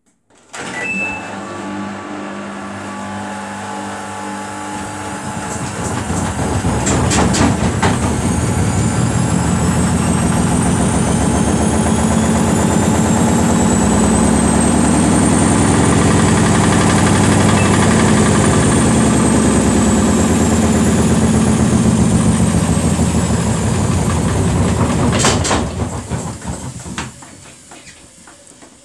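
Samsung WF80F5E0W4W front-loading washing machine on a service-mode spin: the motor's whine climbs in pitch as the drum speeds up and falls again after about the middle, over a loud drum rumble. Short bursts of knocking come as it speeds up and again as it slows, the machine jumping on an unbalanced load, and the sound dies away near the end.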